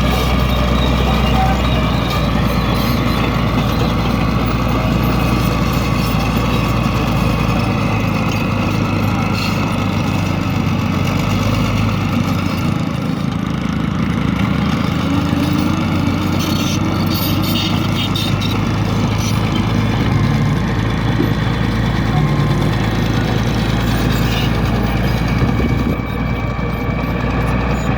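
A bulldozer's heavy diesel engine running steadily, its low note shifting slightly now and then.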